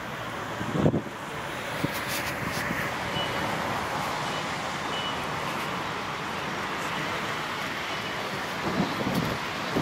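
Steady city traffic noise, with the rush of the street heard from the open upper deck of a moving tour bus. Faint short high beeps sound about once a second through the middle.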